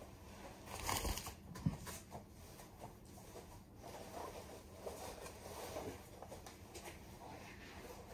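Faint rustling and handling noises, with a louder rustle about a second in and a sharp click just after it.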